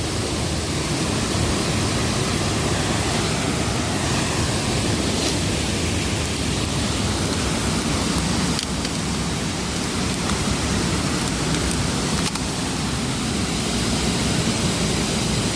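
Waterfall rushing in a steady, loud roar of falling water heard close by at its base.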